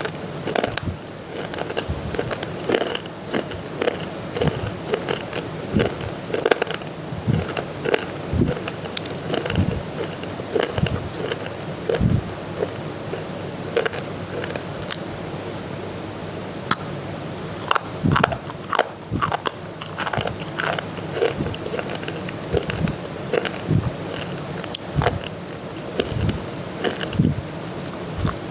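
A person biting and chewing crunchy clay close to the microphone: many sharp, irregular crunches and crackles over a steady background noise.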